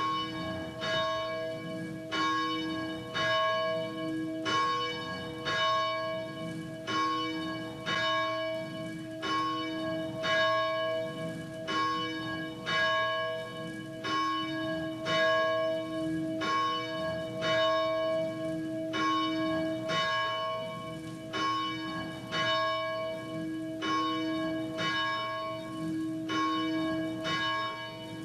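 Church bell ringing, struck over and over at a steady pace, its tone hanging on between strokes.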